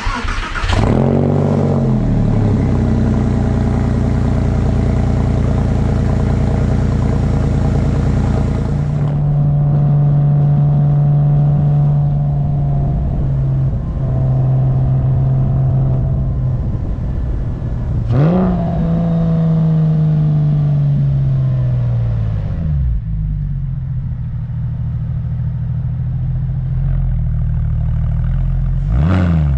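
Porsche 996 911's 3.4-litre M96 flat-six through a muffler delete: a quick blip of the throttle, then steady idling. After that the engine runs while driving, with a sharp rev and then a falling pitch as it slows, quieter running, and another rev near the end. The engine has early signs of bore scoring, which the owner says can't really be heard.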